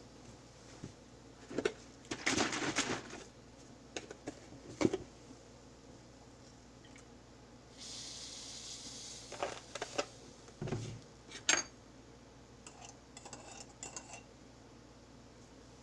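Kitchen handling sounds: clinks and knocks of a ceramic mug and dishes on a wooden counter. About halfway, almond milk is poured from a carton into the mug with a brief hiss, then a metal spoon stirs and clinks lightly against the ceramic mug near the end.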